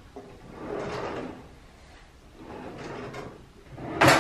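Kitchen drawer rummaging and sliding sounds in two soft swells, then one sharp knock about four seconds in.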